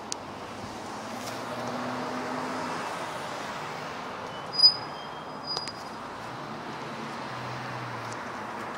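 Steady city road traffic, with car engines and tyres swelling as a vehicle passes about two seconds in. About halfway through comes a short, loud high-pitched chirp, then two fainter chirps a second later.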